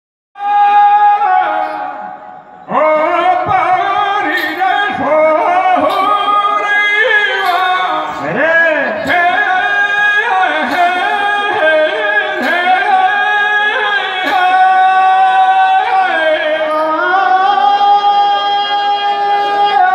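Man singing a Rajasthani Teja gayan devotional ballad into a microphone, with long held high notes and wavering ornaments. A few sharp strikes are heard along with the singing.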